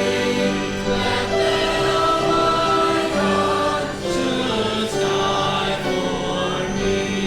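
Congregation or choir singing a hymn with instrumental accompaniment, held notes moving in steps.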